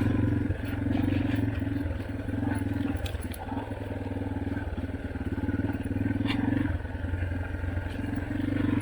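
Yamaha dirt bike engine running under load, with the throttle opening and easing off again and again, and a few brief clicks.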